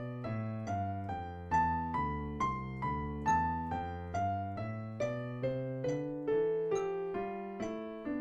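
Digital piano playing a C major scale in contrary motion, both hands together: the high and low notes step apart from each other and then turn back toward the middle, evenly at a little over two notes a second.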